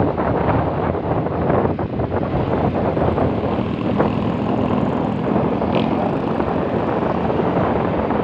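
Wind buffeting the microphone on a moving motor scooter, over the scooter's engine noise; a steady low hum joins about three seconds in.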